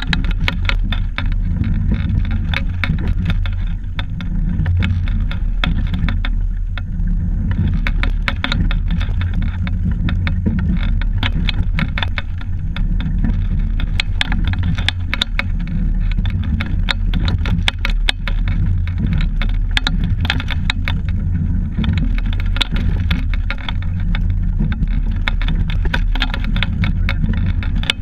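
Double scull rowing shell under way, heard through a camera fixed to the boat: a steady low rumble with dense clicking and rattling from the moving sculling gear.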